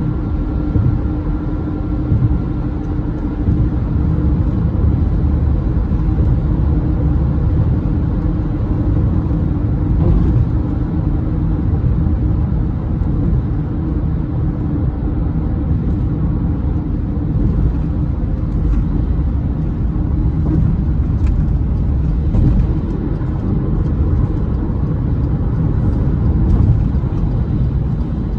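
Steady rumble of a car cruising at freeway speed, with tyre and road noise heard from inside the cabin.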